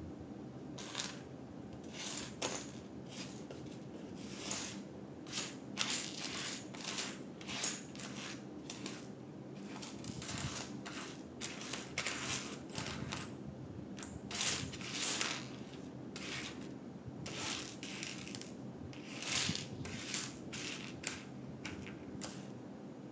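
Loose plastic Lego pieces clicking and clinking as a hand sifts through them: many small sharp clicks at irregular spacing.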